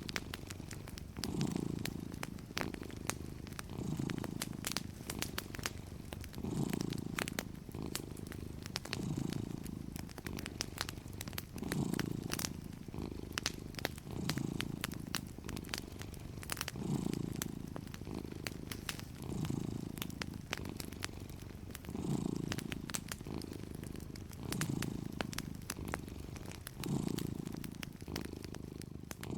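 A cat purring steadily in low waves that swell and fade about every two and a half seconds, over the soft, scattered crackle of a wood fire in a fireplace.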